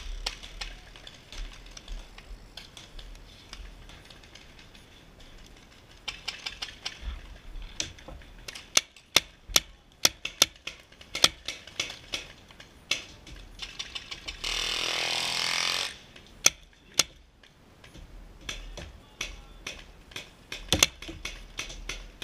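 Paintball markers firing across the field: scattered single shots and quick strings of sharp pops. A loud steady rushing noise lasts about a second and a half midway.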